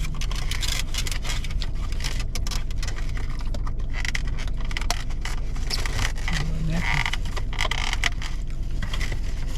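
Small clicks, scrapes and crackles from takeout food containers, wrappers and utensils being handled while someone eats, over a steady low hum.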